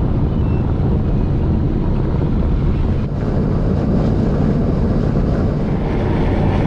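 Inside the cab of a 1997 Ford F-250 pickup at highway speed: steady engine, tyre and wind noise, mostly a low rumble.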